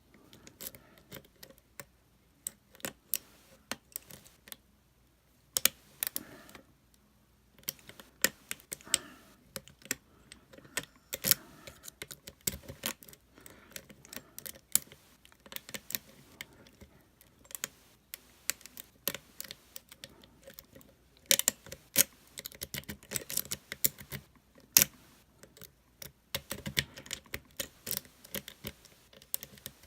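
Lock pick and tension wrench working in the metal core of a Master Lock lockout-tagout padlock. Irregular small metallic clicks and scrapes come as the pins are picked.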